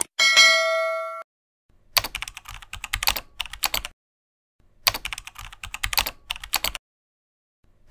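A click, then a bright bell ding ringing for about a second, then two runs of rapid keyboard-typing clatter about two seconds each with a short gap between: sound effects for an on-screen subscribe animation and text cards.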